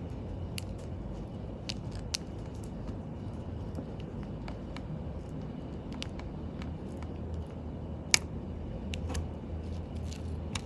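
Small metal watchmaking tools clicking and ticking now and then against a watch movement as its hands are removed, over a steady low background hum. The sharpest click comes about eight seconds in.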